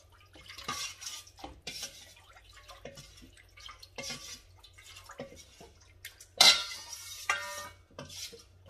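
Spoon stirring rice-flour batter in a bowl, scraping and clinking irregularly against the sides. A louder ringing clink comes about six and a half seconds in.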